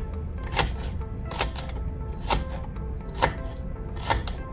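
Knife chopping vegetables on a cutting board, one even stroke a little under once a second.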